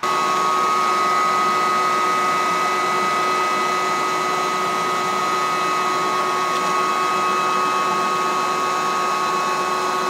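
Vacuum running steadily with a high motor whine, used to suck honey bees off exposed comb.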